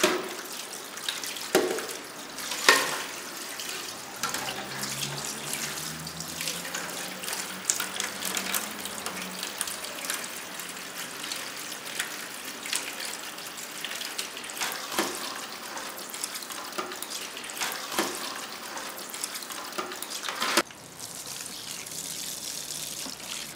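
Water running from a tap into a sink, with scattered knocks and clinks of dishes being washed. Near the end the running water changes, as a tap runs into a plastic washbasin.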